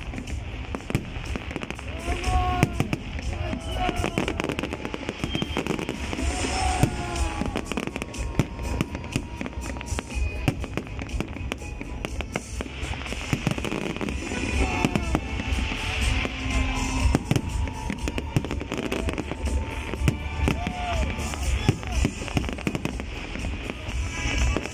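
Fireworks display: aerial shells bursting overhead in a continuous run of deep bangs and crackling.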